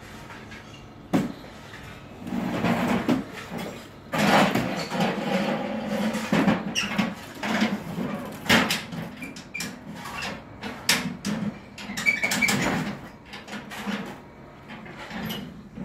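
Electric scaffold hoist winching a wheelbarrow of rubble upward: the motor hums steadily while the barrow and hoist frame clank and rattle repeatedly. A sharp metal clank comes about a second in, before the lift starts.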